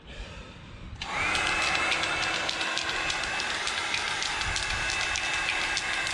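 Black & Decker heat gun switched on about a second in: its fan motor spins up with a quickly rising whine, then runs steadily with the rush of blown air.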